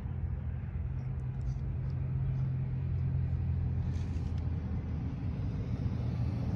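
Car engine idling steadily: an even, low hum.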